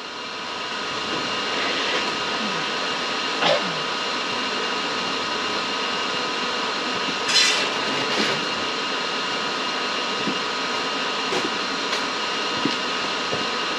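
Steady machine drone with a couple of faint held tones in it, building up over the first two seconds and then holding level. A few short knocks and clicks land on top of it, the loudest about halfway through.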